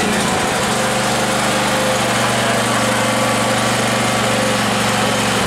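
Small gasoline portable generator engine running steadily at an even speed, just pull-started.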